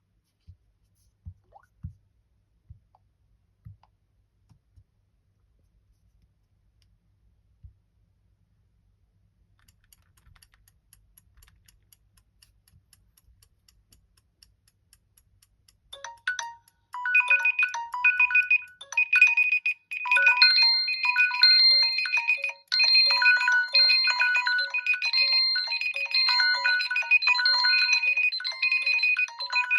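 A few soft low knocks, then about halfway through a smartphone alarm tone starts: a bright electronic melody repeating over and over.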